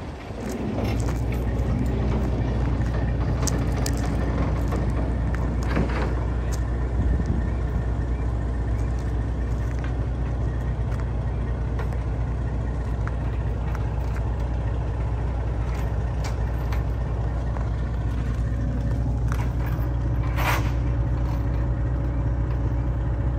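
Ford 3000 tractor's three-cylinder engine idling steadily, a low even hum. A brief sharp noise cuts in near the end.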